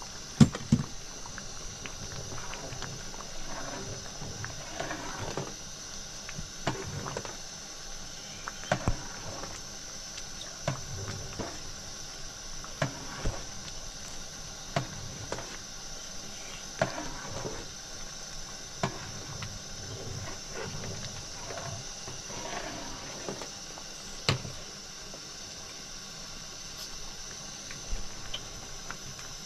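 Steady rain hiss with irregular sharp taps or knocks every second or two.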